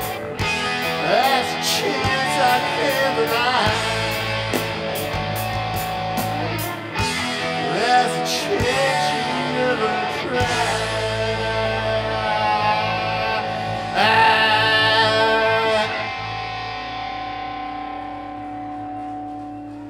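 Live rock band with electric guitar playing the song's closing section: steady high ticks keep time for the first few seconds under bending guitar notes, a loud swell comes about fourteen seconds in, then the playing stops and held guitar tones ring on, fading as the song ends.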